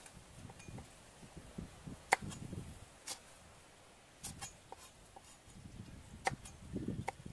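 Cleaver slicing garlic and chilies on a wooden chopping block: irregular, unhurried knife taps and dull knocks against the wood, with a few sharp clicks spread through.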